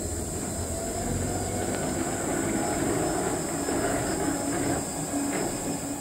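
Two-car sightseeing monorail running steadily along its track, a continuous rolling noise with a faint hum that drops away at the end.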